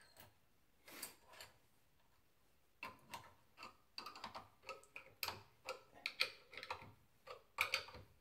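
Open-end wrench clicking and clinking on the nut and steel strap clamp as the clamp nut is tightened in short turns: a couple of taps about a second in, then a run of irregular metal clicks, several a second, from about three seconds in.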